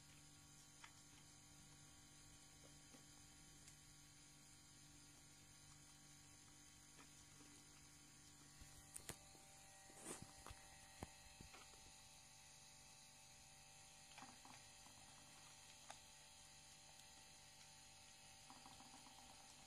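Near silence: a faint, steady electrical hum, with a few faint clicks about halfway through.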